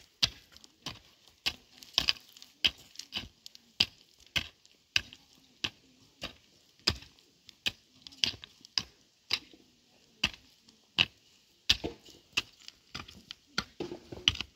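A steady series of sharp knocks, about one every half to two-thirds of a second, each short and clean with quiet between.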